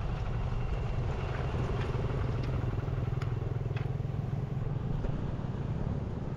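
Motorcycle engine running steadily while riding a rough dirt trail, with a few sharp clicks and rattles mixed in.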